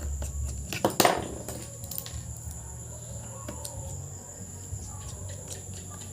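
Scattered light clicks and knocks of laptop parts being handled during reassembly, the loudest a sharp knock with a brief ring about a second in, over a low hum and a steady high whine.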